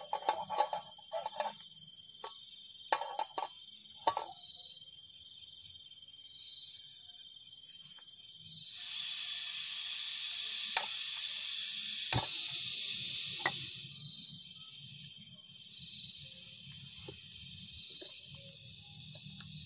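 Crickets chirp steadily throughout. In the first few seconds an aluminium cookpot clinks as it is set on a portable gas stove; about nine seconds in, the stove's gas starts hissing, three sharp igniter clicks follow, and once the burner lights it runs with a low, steady rumble.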